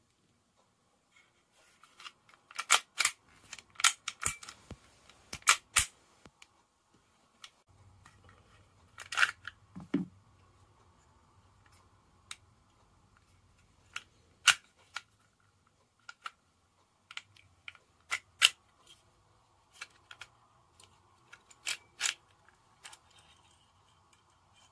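Sharp mechanical clicks and clacks from a Sig Sauer P365 air pistol being worked by hand and field-stripped, the slide and parts snapping. They come irregularly, several in quick succession in the first few seconds and then singly or in pairs, with one duller thud near the middle.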